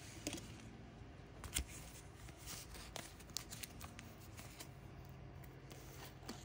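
Trading cards being handled by hand, sliding and flipping against each other: faint, scattered light clicks and soft rustles.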